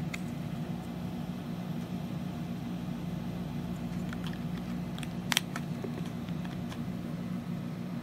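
A clear plastic keycap on an X-keys XK-80 programmable keypad being handled, making a few faint clicks and one sharp click about five seconds in, over a steady low hum.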